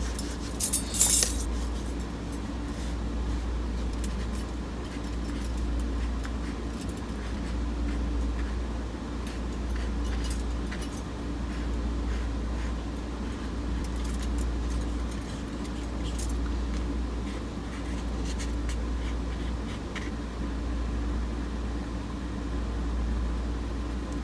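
Steady low hum, with a quick cluster of small clinks about a second in and faint scattered light taps after.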